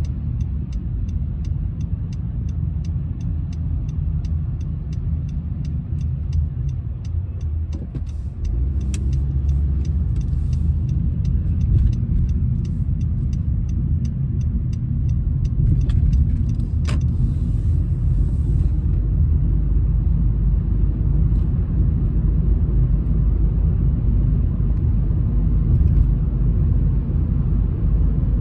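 Road noise inside a moving car's cabin: a steady low rumble of engine and tyres. Over it the turn-signal indicator ticks evenly, a few clicks a second, until about two-thirds of the way through, then stops.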